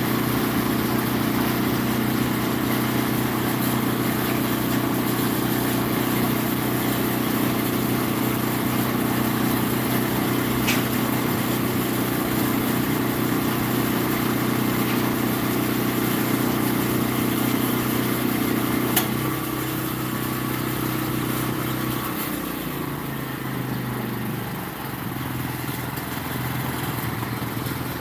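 An engine running steadily with a low, even hum. About 19 seconds in it eases off and its pitch falls away over the next few seconds, with a couple of faint clicks along the way.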